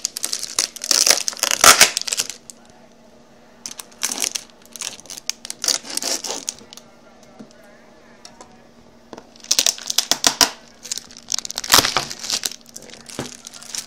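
Packaging being handled: plastic and cardboard crinkling and rustling with small clicks, in four separate bursts.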